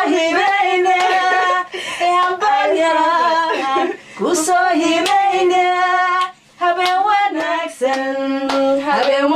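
A woman singing a melody in long held notes, with short pauses between phrases.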